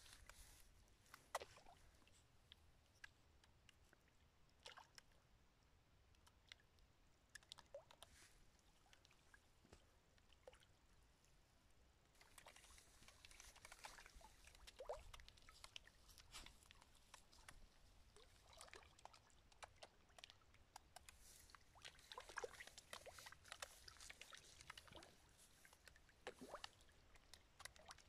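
Fish feeding at the pond surface, faint small splashes and smacking pops on the water. They are sparse at first and get much busier from about the middle onward.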